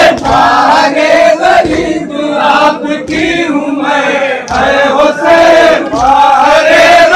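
A group of men chanting a noha, a Shia lament for Imam Husain, together through microphones, in phrases of about a second and a half.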